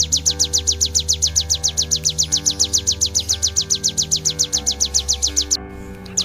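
Ciblek (prinia) song: a rapid, evenly repeated series of high, sharp notes, about six a second, breaking off briefly near the end. Sustained background music plays underneath.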